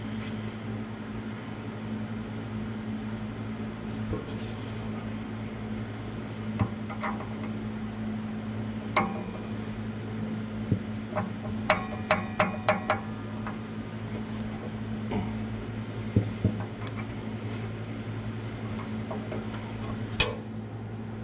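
Scattered metallic clinks and taps of tools on the table saw's loose V-groove motor pulley, with a quick cluster of ringing clinks about halfway through, as the pulley is shifted along its shaft to line up with the arbor pulley. A steady low hum runs underneath.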